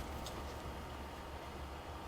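Faint room tone with a steady low hum and a faint tick or two just after the start; no distinct tool or handling sound.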